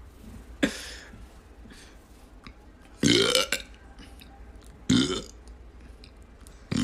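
A man burping four times: a brief one near the start, a longer, louder one about three seconds in lasting around half a second, then two more short ones. The burps are all short, as he can't seem to do long ones now.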